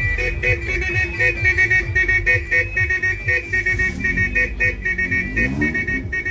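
Custom jeepney horn sounding a rapid pulsing pattern of two high tones, about four blasts a second, over music with a thumping bass beat.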